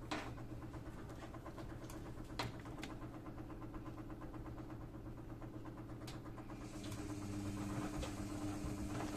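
Edesa front-loading washing machine humming steadily during its rinse cycle, with a few faint clicks. About seven seconds in its drum motor starts and the drum begins to turn, adding a louder steady motor hum.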